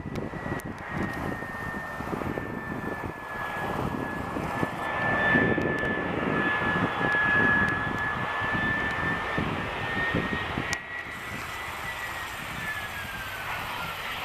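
Airbus A319-112 with CFM56 turbofan engines on short final, a steady high whine over a rumbling jet noise. Around twelve seconds in, the whine drops in pitch as the jet passes by to touch down.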